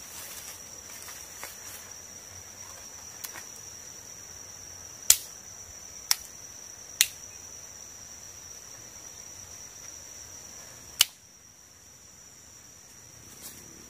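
Dry twigs snapping by hand: three sharp cracks about a second apart, then a fourth a few seconds later, with lighter clicks of sticks being handled. Under them, a steady high drone of insects.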